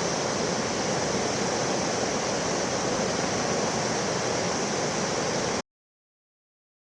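Floodwater rushing in a steady, even rush of fast-flowing water, cutting off abruptly about five and a half seconds in.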